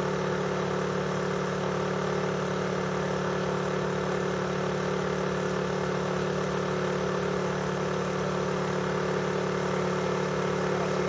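A steady mechanical hum, unchanging throughout, with a low drone and a higher tone above it.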